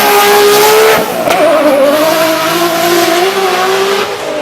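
Car engine at high revs under hard acceleration. The pitch drops sharply about a second in, as at a gear change, then climbs slowly again and drops once more near the end.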